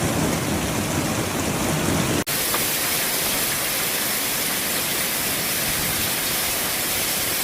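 Heavy rain falling steadily. It breaks off for an instant about two seconds in and resumes hissier and thinner.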